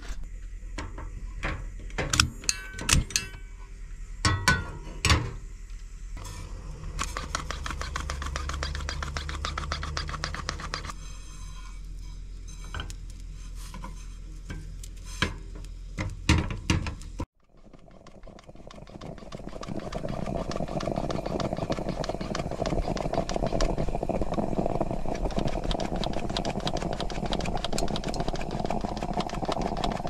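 Cooking at a small gas stove: a metal pan and utensils knock and clink while a spatula works tapioca in a frying pan. After a sudden cut, a steady hiss from the stove builds over a few seconds and holds.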